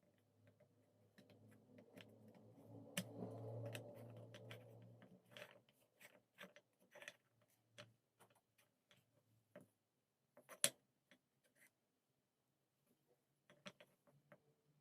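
Faint, irregular clicks and taps of small parts being handled, with a low hum during the first five seconds and one sharper click about ten and a half seconds in.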